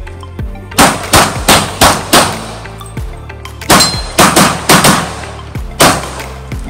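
Semi-automatic pistol fired in rapid strings of about three shots a second, with short pauses between strings, as the shooter engages targets on a practical-shooting course. Background music plays underneath.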